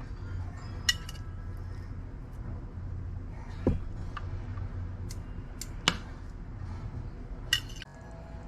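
Four short, sharp clicks and knocks spaced a couple of seconds apart over a steady low hum, like small objects being handled.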